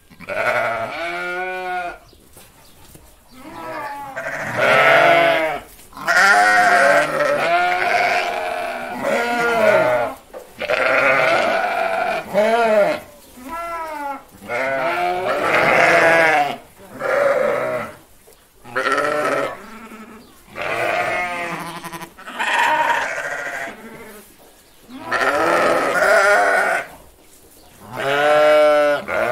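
Sheep bleating over and over: a run of wavering baa calls of varying pitch, each a second or two long, with short gaps between them.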